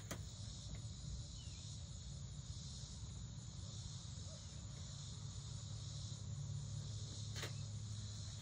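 Steady high insect chorus, with a low hum underneath and a couple of faint clicks, one at the start and one about seven seconds in.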